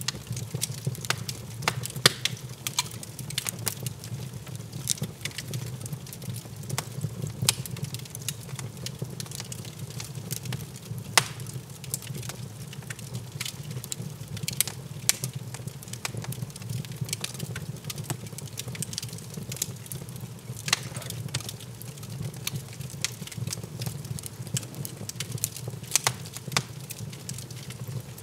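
Wood fire burning in a stone fireplace, crackling with frequent irregular sharp pops and snaps over a steady low rumble.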